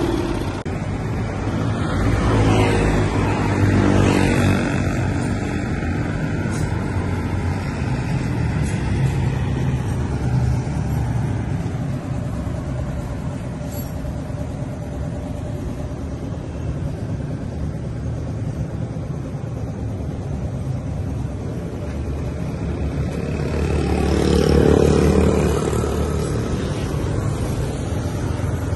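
Small air-cooled Kubota OHV petrol engine on a Tsuchiya reel greens mower running steadily, swelling louder for a couple of seconds near the start and again about three-quarters of the way through.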